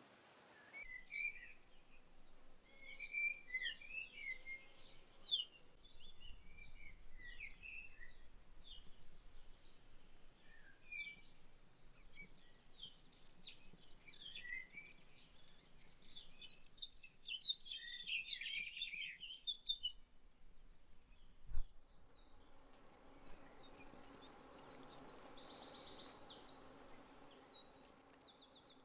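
Small songbirds chirping and singing in many short, high calls. A single sharp click comes about two-thirds of the way in, then a quick, rapidly repeated high trill.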